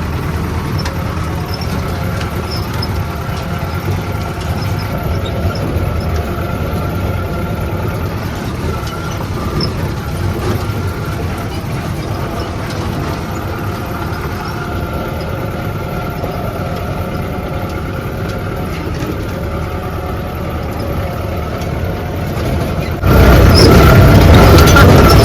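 Jeep engine and road noise while driving, a steady low rumble with a faint whine above it. Near the end the sound cuts suddenly to a much louder stretch.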